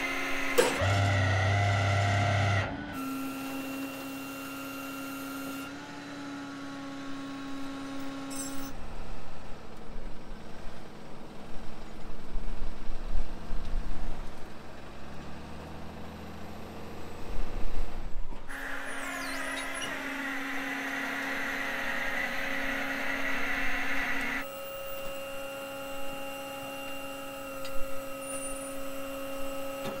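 Rollback tow truck's engine and hydraulic winch system whining steadily while pulling a pickup up the tilted bed, broken by abrupt cuts. A rougher stretch in the middle carries irregular louder knocks.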